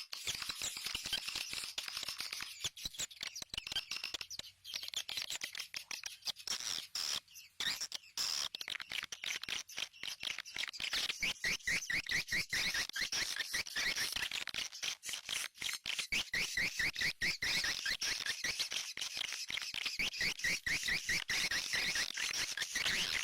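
Swiftlet calls: a dense chatter of rapid clicks and quick high chirps, getting denser and louder about ten seconds in.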